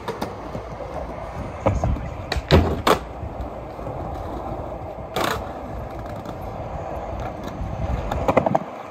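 Skateboard wheels rolling on smooth concrete with a steady low rumble, broken by sharp clacks of the board: a cluster about two to three seconds in, a strong one about five seconds in, and several more near the end.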